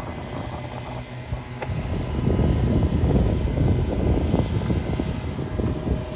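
Motors and propellers of a multirotor agricultural drone running, a steady hum over a low rumble that grows louder about two seconds in.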